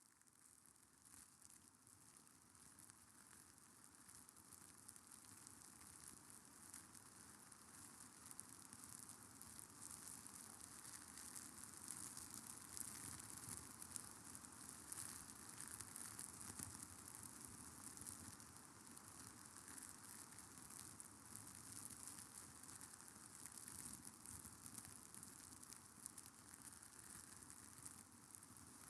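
Faint, steady crackling hiss, fading in over the first several seconds.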